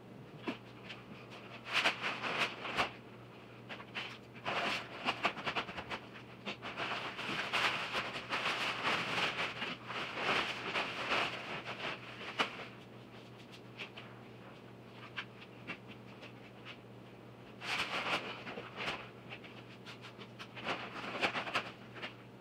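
Sand pouring from paper bags into a hollow steel hot water tank: a hissing rush in several spells, from about a second to several seconds long.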